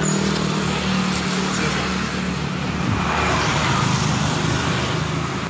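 A vehicle engine running at a steady hum, with a broad rushing noise over it.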